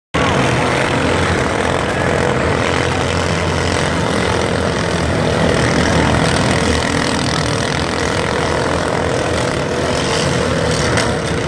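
Many riding lawn mower engines running together as a steady, dense drone.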